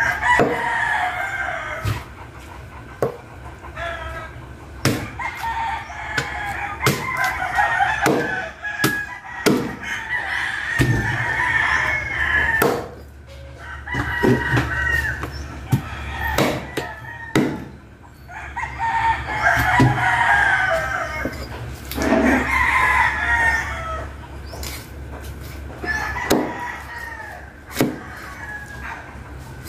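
Chickens and roosters crowing and clucking in several long stretches, over repeated sharp knocks of a heavy cleaver chopping fish on a wooden chopping board.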